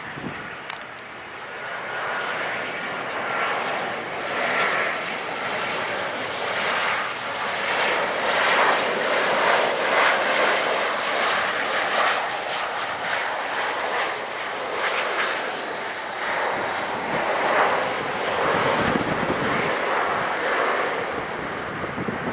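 Jet engine noise of a Boeing 737-800's twin CFM56 turbofans as the airliner comes in to land and touches down, swelling louder toward the middle and staying loud through the touchdown and rollout, with a faint high whine falling in pitch just after touchdown.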